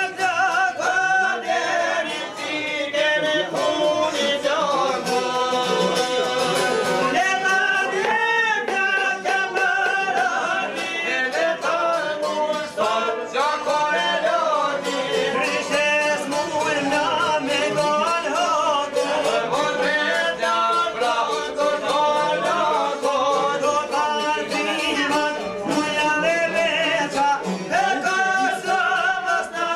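A man singing a traditional Albanian folk song in a high, wavering, ornamented voice, accompanied by a plucked long-necked lute.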